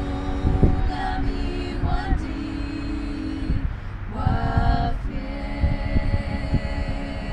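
Several women singing a Bemba gospel hymn a cappella, holding long notes, with a short break a little past halfway before a higher phrase.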